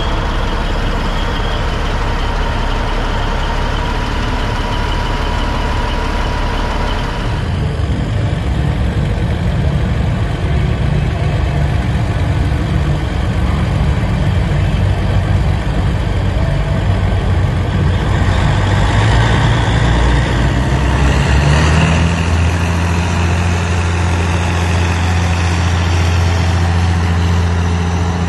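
Big Bud tractor's large diesel engine running loud. Its low note climbs in pitch about twenty seconds in, then holds steady.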